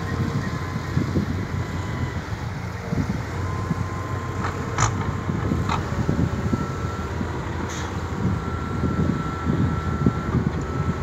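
Diesel engine of a Hitachi Zaxis 200 hydraulic excavator running steadily while digging and loading soil, with a faint high whine and a few sharp metallic clanks about halfway through.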